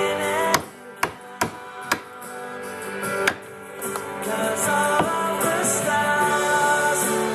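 Background music, with about six sharp knocks over the first five seconds: a wood chisel striking and splitting chunks of wood out from between bandsaw cuts in a wooden blade.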